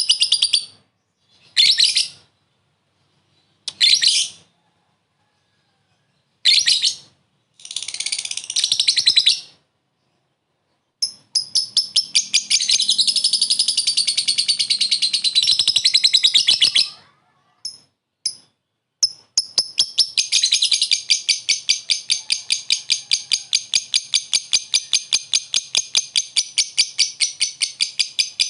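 Lovebird giving several short, shrill calls, then breaking into long, rapid chattering trills, its 'ngekek' song: one runs for about six seconds from around 11 s in, and another starts near 19 s and keeps going at about five pulses a second.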